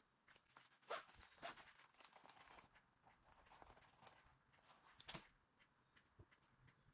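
Pens clattering and fabric rustling as a hand rummages in a zippered fabric pencil case, busiest in the first few seconds, with one sharper clack a little after five seconds as a pen is taken out.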